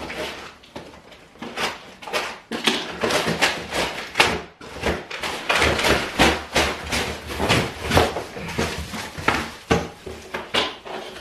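Irregular knocks, scrapes and rustles of flat-pack dining-set parts and their packaging being handled and unpacked.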